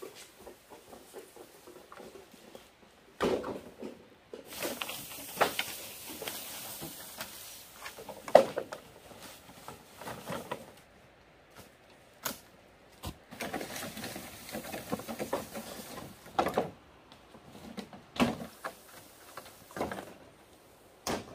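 Long bamboo poles being carried and dragged through leafy undergrowth, rustling, with sharp knocks and clatters as the poles strike each other and are set down on a pile; the loudest knock comes about eight seconds in.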